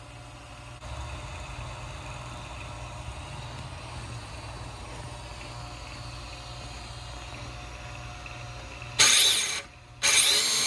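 Brushless electric motor of a 1/10-scale front-wheel-drive RC car (Tamiya FF-03 chassis) revving in two short loud bursts near the end, a whine rising and falling in pitch as the front tires spin in place. Before that, a low steady hum.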